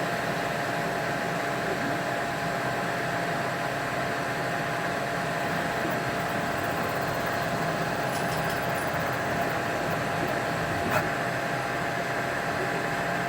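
Qidi X-Plus 3 CoreXY 3D printer running a fast print: a steady whir of its fans and motion system with several steady whining tones, even in level.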